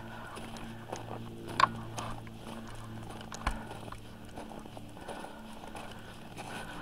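Footsteps crunching on packed snow in microspikes, with the taps of trekking poles in a steady walking rhythm; one sharp click stands out about a second and a half in. A steady low hum runs underneath and stops about four seconds in.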